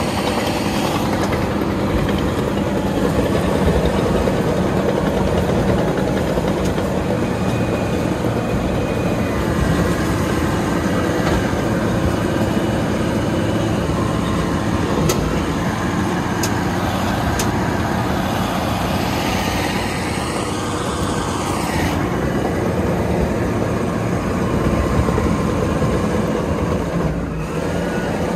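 FiatAllis FA 200 crawler tractor's diesel engine running steadily under load while it pulls a disc harrow through stubble, with a few sharp clicks about halfway through.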